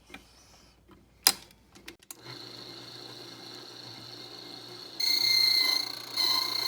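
A couple of sharp metallic clicks, then a key-cutting machine's motor starts about two seconds in and runs steadily with a high whine. Twice near the end it gets louder as the cutter works the key blank.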